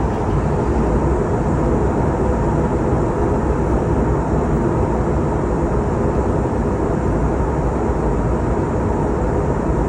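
Steady cabin noise of an airliner in flight, heard from inside the cabin: a constant low rushing of engines and airflow with a faint steady hum, unchanging throughout.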